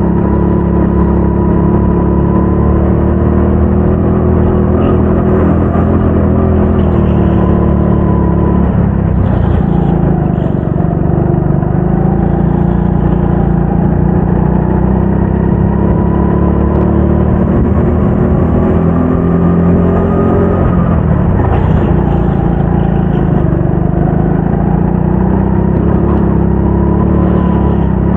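Go-kart engine running hard, heard close up on board, its pitch rising and falling as the kart speeds up and slows through the corners; the pitch drops clearly about twenty seconds in and then climbs again.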